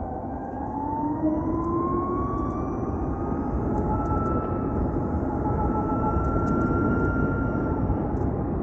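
Ather 450X electric scooter's motor whining as it rides, rising in pitch over the first few seconds as it picks up speed and then holding steady, over a steady rush of wind and road noise.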